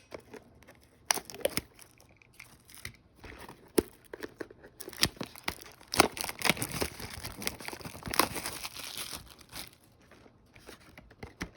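Plastic wrapping being torn and crinkled off a sealed trading-card box, with scattered sharp clicks and a denser run of crinkling in the middle.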